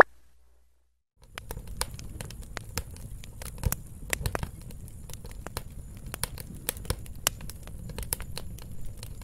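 Fire crackling: irregular sharp pops and snaps over a low steady rush, starting about a second in.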